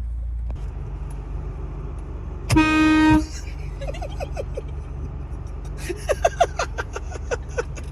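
A newly installed GAMPRO 12-volt air horn, wired into a car's horn circuit, gives one short blast of a single steady tone about two and a half seconds in, lasting under a second; it is the loudest sound by far.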